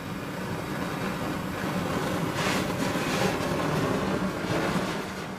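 Rushing, churning noise from a water-filled hydrogen-generating reactor as its reaction gets under way and starts giving off gas; it builds over the first two seconds and then holds.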